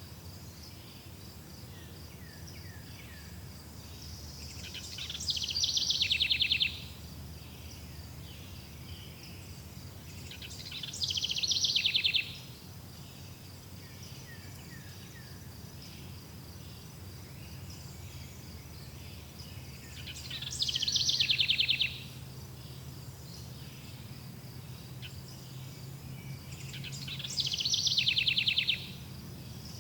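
Forest ambience of birds and insects: a steady high-pitched insect drone under a low hum, broken four times by a loud, fast pulsing trill about two seconds long.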